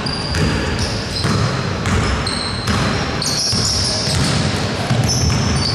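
Basketball being dribbled on a hardwood gym floor, a run of repeated bounces, with sneakers squeaking on the floor in short high squeals.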